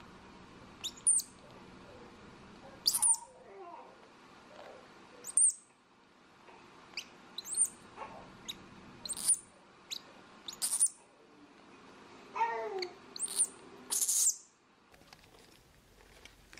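Infant squirrel monkey giving short, very high-pitched chirps, about ten of them at irregular intervals, a few trailing into a lower wavering squeak.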